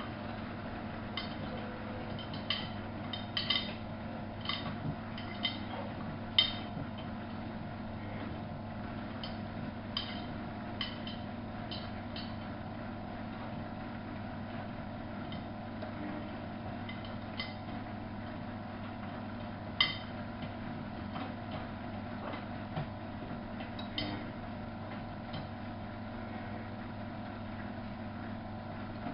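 Miele Novo Super W933 washing machine running with a steady motor hum. Irregular light clicks and clinks come over it, most of them in the first several seconds.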